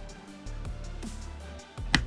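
Background electronic music with a deep bass line and drum hits, one sharp hit near the end.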